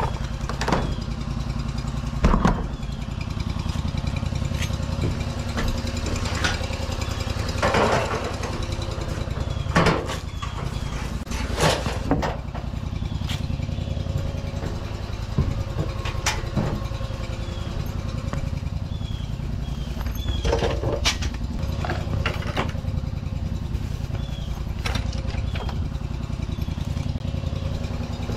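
An engine running steadily at idle, with irregular knocks and clunks over it, the loudest about 2, 8, 10, 12, 16 and 21 seconds in.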